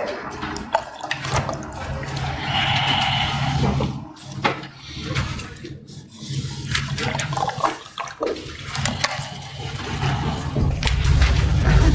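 A person drinking from a plastic water bottle, picked up close by a headset microphone: water gurgling and swallowing, with scattered clicks from handling the bottle, over a steady low hum.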